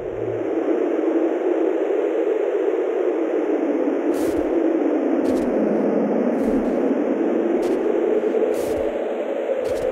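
Blizzard wind, a steady rushing noise whose pitch sinks slowly around the middle and rises again. From about four seconds in there are faint soft pulses about once a second.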